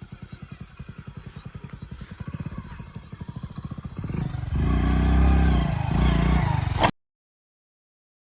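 Hero Splendor Plus motorcycle's single-cylinder engine puttering at low revs with an even beat, then revved up louder about four seconds in. The sound cuts off abruptly into silence near the end.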